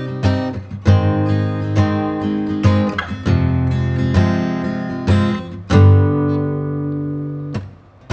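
Acoustic guitar strumming chords in a steady rhythm; about six seconds in a last chord is left to ring and dies away.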